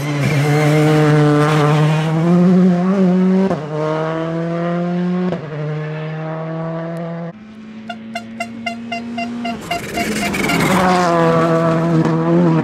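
Rally cars at full throttle on a special stage: an engine climbs in pitch and snaps through quick upshifts. After a cut, an engine holds a low steady note with a rapid string of sharp exhaust pops, about six a second. Then another car accelerates past, its note rising and then falling away.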